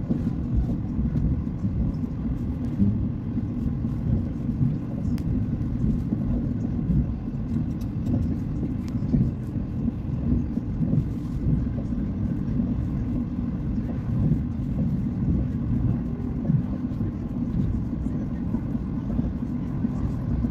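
Steady low rumble of a passenger train running along the track, heard from inside the carriage.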